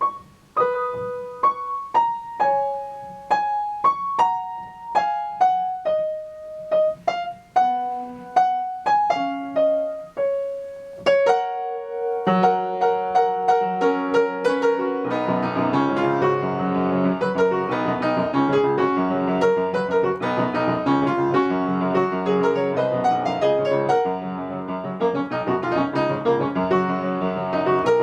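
Instrumental music: a simple melody of single struck notes, joined about twelve seconds in by chords and a bass line that fill it out.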